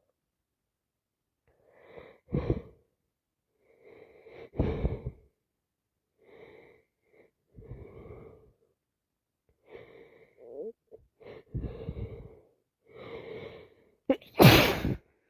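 A woman with a heavy head cold taking a string of short, catching breaths as a sneeze builds, then one loud, sharp sneeze near the end.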